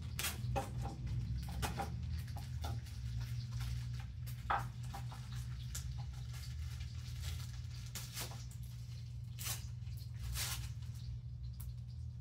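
Scattered light clicks, taps and rustles of cooking and food handling in a kitchen, over a steady low hum. One sharper knock comes about four and a half seconds in.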